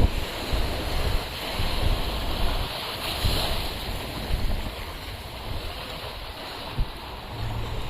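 Sea surf washing onto a beach, a hissing wash swelling about three seconds in, with wind buffeting the microphone.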